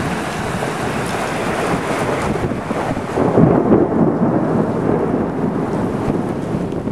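Heavy thunderstorm rain and gusting wind, with a low roll of thunder swelling about three seconds in and slowly fading.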